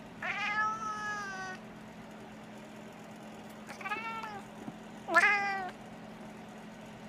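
Maine Coon cat calling three times in meow-like cries, which the owner calls chattering: a long call at the start, a shorter one about four seconds in, and the loudest just after five seconds.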